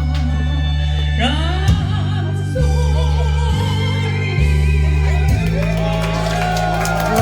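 A Korean ballad sung live over a backing track: a singer holds long, wavering notes above a steady bass line whose notes change about once a second.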